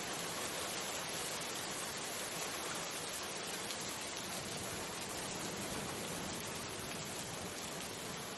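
Steady rain falling onto puddles and wet ground, an even hiss with no breaks.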